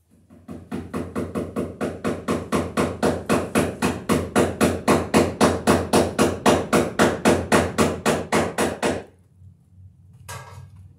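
Hammer tapping rapidly and evenly, about four to five blows a second, for about eight seconds, then stopping.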